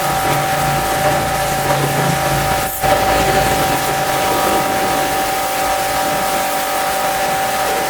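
Pressure washer running steadily: a constant motor and pump whine under the hiss of the water spray, with a brief break about three seconds in.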